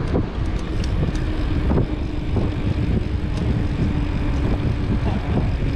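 Road traffic noise with wind on the microphone: a dense, steady rumble of passing vehicles with a faint engine hum underneath and a few light clicks.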